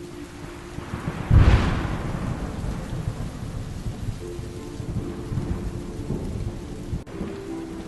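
A sharp thunderclap about a second and a half in, then rolling thunder rumbling over steady rain.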